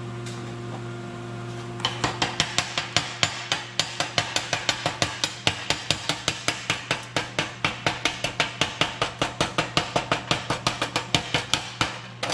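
Slag hammer rapidly chipping slag off a fresh 7018 stick-weld bead, about four or five metal-on-metal blows a second, starting about two seconds in. A steady low hum runs underneath.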